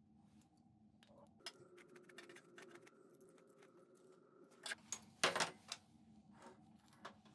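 Small metal clicks and clinks as a steel hose clamp and brass barb fitting are handled while a reinforced plastic gas hose is fitted onto a torch handle. The loudest part is a short, rough rustling scrape of handling about five seconds in.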